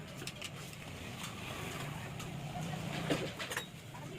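Scattered metallic clicks and light knocks of tools and engine parts being handled during assembly, over a steady low background hum.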